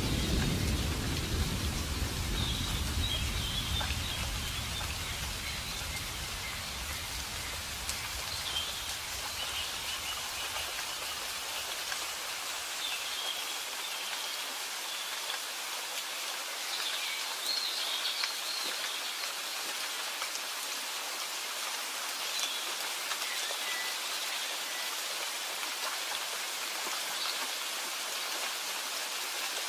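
Steady rain falling, an even hiss, with the low rumble of thunder dying away over the first ten seconds. Faint high chirps come through now and then.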